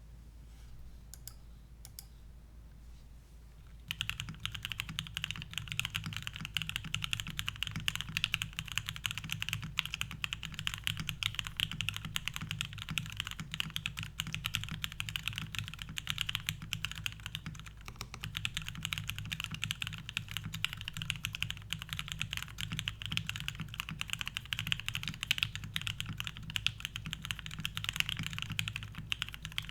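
Fast, continuous typing on a TGR Jane V2 custom mechanical keyboard with lubed Gateron Ink linear switches, a full aluminium plate with no foam, and thick PBT keycaps. A few isolated key presses come first, and steady typing begins about four seconds in.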